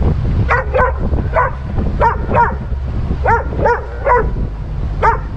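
Chesapeake Bay Retriever giving short, high yelping whines, about nine of them, mostly in quick pairs, over a steady low rumble.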